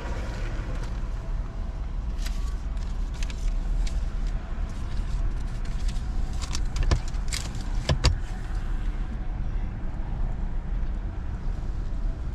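Car engine idling with a steady low rumble, with scattered short clicks and rustles of handling. Two sharper knocks come about seven and eight seconds in.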